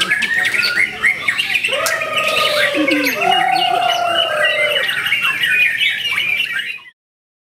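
White-rumped shama singing: a fast, dense run of chirps and whistles, with two long, low whistled notes about halfway through. The song stops abruptly near the end.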